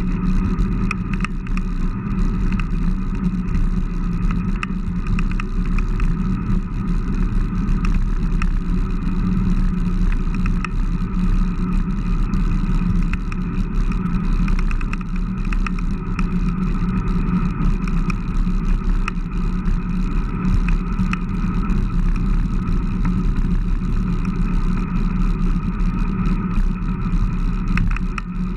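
Steady rumble of wind and tyre-on-asphalt vibration picked up by a camera mounted on the handlebars of a Fuji road bike riding along a street, with a few small clicks now and then.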